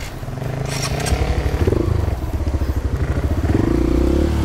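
Dirt bike engine running at low revs under light throttle, the revs rising and falling and climbing a little near the end.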